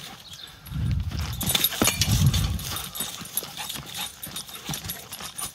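A dog sprinting on grass and dirt, its paws thudding on the ground in quick galloping footfalls, loudest in the first half.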